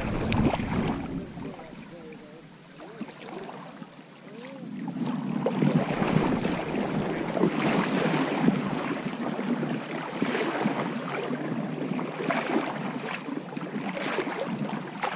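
River water rushing and splashing, quieter for a few seconds, then louder and choppier from about five seconds in.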